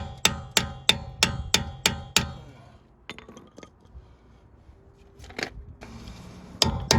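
Background music with a steady percussive beat of about three strikes a second over held notes; it fades out a couple of seconds in, leaving a few faint knocks, and comes back in near the end.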